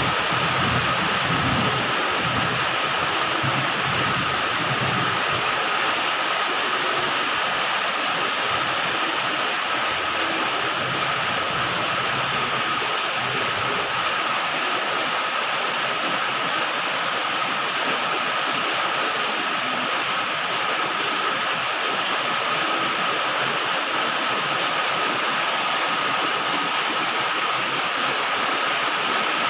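Steady heavy rain falling on a galvalume metal roof, an even hiss. A low rumble of thunder fades away in the first few seconds.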